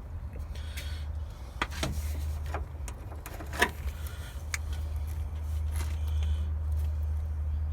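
Light clicks and knocks of small parts being handled during work on a car's radiator and cooling hoses: about half a dozen, the sharpest a little past the middle, over a steady low rumble.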